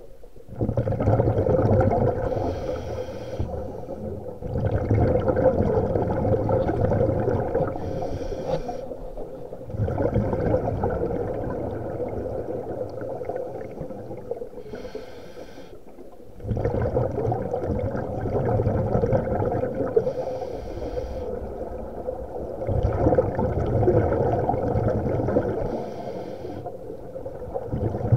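Scuba diver breathing through a regulator underwater: exhaled air bubbling out in long bursts every five to six seconds, with short pauses between breaths.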